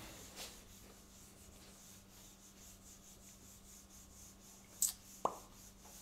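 Faint rubbing of a handheld eraser wiped across a whiteboard. Near the end there is a short scrape, then a single sharp click.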